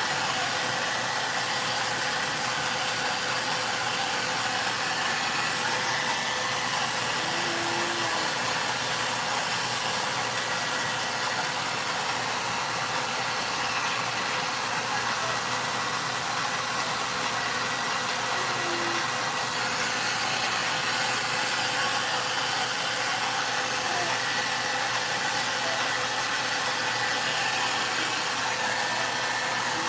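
VONE hair dryer running steadily, a constant rush of blown air with a faint steady whine from its motor.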